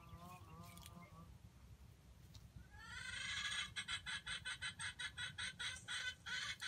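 Junglefowl hen calling: a drawn-out wavering call that ends about a second in, then a rising note that breaks into a quick run of clucks, about four a second.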